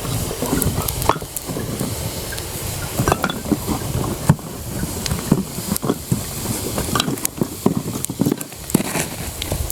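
Wood campfire crackling, with irregular sharp pops and snaps over a steady low rush.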